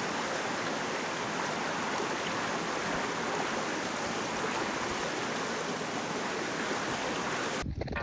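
Steady rushing of flowing water from a stream, even and unbroken, cutting off abruptly near the end.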